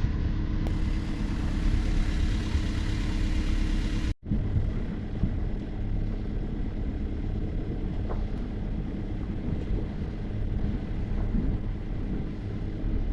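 A sailing yacht's inboard diesel engine running steadily with a low rumble, with a brief break about four seconds in.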